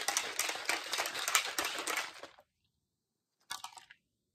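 Protein shake being shaken hard in a shaker bottle: a fast run of rattling knocks that stops about two seconds in. A brief handling sound follows near the end.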